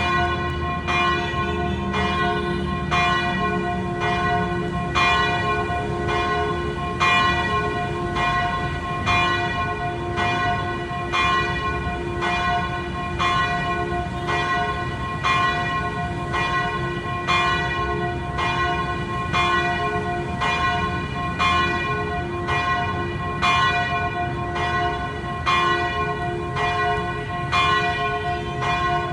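Church bells ringing in a steady, even run of strokes, each stroke's tones ringing on and overlapping the next.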